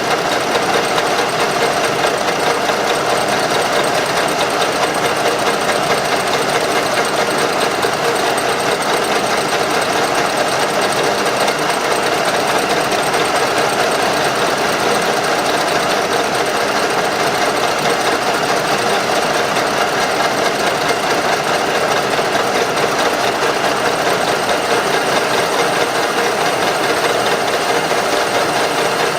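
A machine running steadily, with a fast, even mechanical clatter that holds unchanged throughout.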